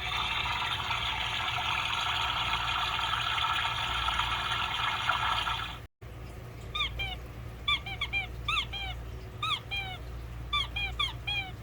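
Recorded sound effects played back from a children's sound book. A steady rushing sound lasts about six seconds and cuts off. After a brief break comes a run of short, quick chirps, many of them in pairs or small groups.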